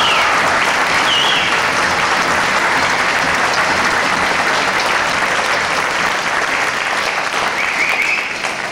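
Theatre audience applauding, dense steady clapping with a couple of short high calls from the crowd about a second in and near the end; the applause begins to thin out toward the end.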